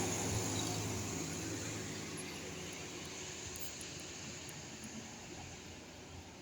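A passing bus's engine running and fading away as it drives off, its low hum dying down steadily.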